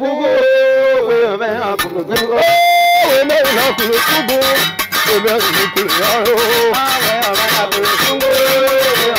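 Music: a singer holding long, wavering notes, joined about three seconds in by fast, dense plucked or struck instrumental playing.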